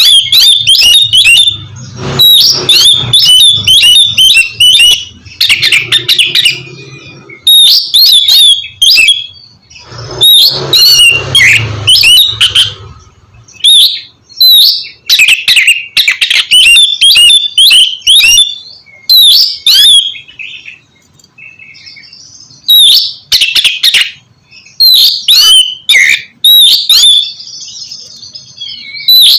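Oriental magpie-robin (kacer) singing: loud, rapid, varied phrases of chirps and whistles in bursts separated by short pauses.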